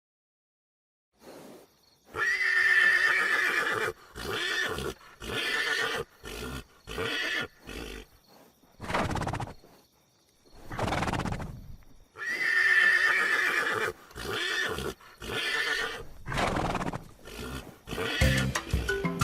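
A horse whinnying: a long, loud neigh that breaks into a string of shorter whinnies, then two long breathy blows, then the same run of whinnies again.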